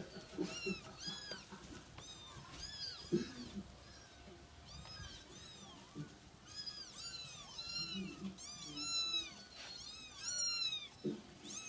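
Several kittens mewing over and over, short high-pitched calls that rise and fall, often overlapping, coming thicker in the second half.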